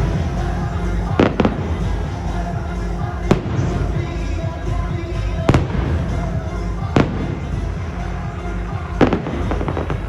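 Fireworks bursting over the fireworks show's soundtrack music, with sharp bangs a second or two apart, about six in all.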